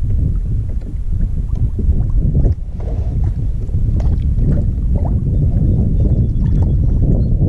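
Wind buffeting the microphone in a steady, loud rumble, with water lapping at a kayak hull and a few small clicks and knocks.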